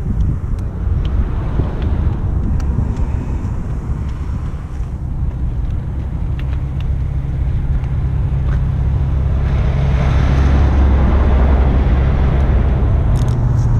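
Motorcycle engines idling, a steady low hum that grows louder from about ten seconds in.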